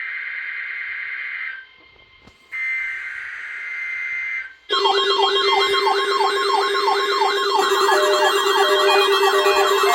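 Emergency Alert System tones: two buzzing bursts of SAME header data, then from about five seconds in a loud electronic alert of several warbling, siren-like sweeping tones over a steady low hum, which grows busier near the end.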